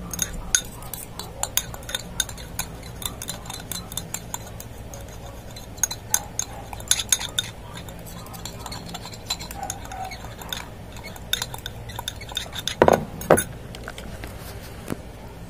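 A spoon stirring a thick egg-yolk and coffee mixture in a small glass jar, scraping and clinking irregularly against the glass. Two louder knocks come near the end.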